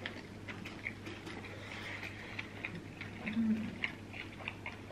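Two people chewing a toasted sub sandwich close to the microphone: soft, irregular wet mouth clicks and smacks. There is a brief low hummed "mm" about three and a half seconds in.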